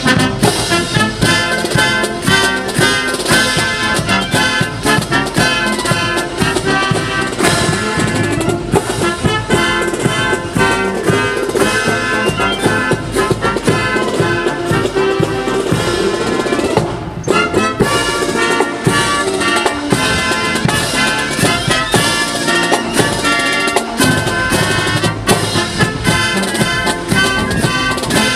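Marine Corps band music played on brass and drums, with a brief break about seventeen seconds in.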